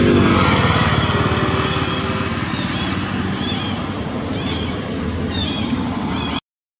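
A motor vehicle's engine running close by, a steady low hum that is loudest at the start and slowly eases off. Over it, from the middle on, a string of short high chirping calls comes about twice a second, and the sound cuts off abruptly near the end.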